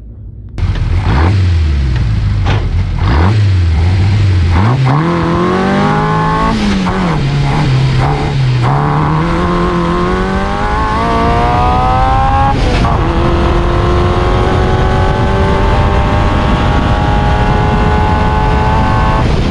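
Reliant 750cc four-cylinder race engine in a small sports racer, heard from an onboard camera. It runs unevenly at low revs at first, then accelerates hard, its pitch rising steadily through the gears. It drops sharply at two upshifts, about six and twelve and a half seconds in.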